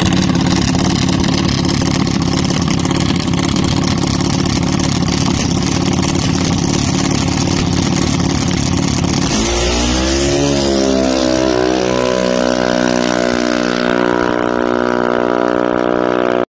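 Junior dragster's single-cylinder engine running loud and steady at the starting line. About nine seconds in it launches: the engine note wavers, then climbs slowly as the car pulls away down the track.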